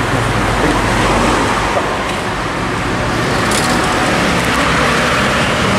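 Steady motor-vehicle noise: a low, even engine hum under a constant hiss, unchanging throughout.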